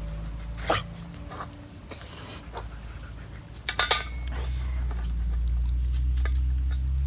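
Knocks and rubbing from a phone being handled up close to a dog, with a few sharp clicks, the loudest cluster about halfway through, and a low rumble on the microphone that swells in the second half.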